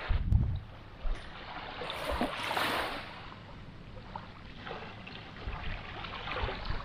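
Gentle shore waves washing over a sandy beach, a swell of hiss about two seconds in with smaller ones after it. Wind buffets the microphone briefly at the start.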